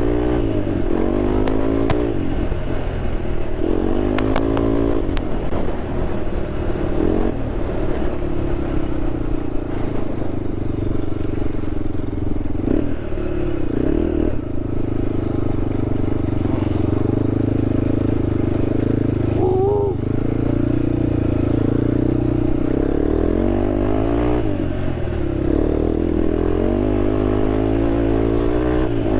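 Honda TRX sport quad engine running under load while being ridden off-road, its revs climbing and dropping back several times, with a few brief clicks about four seconds in.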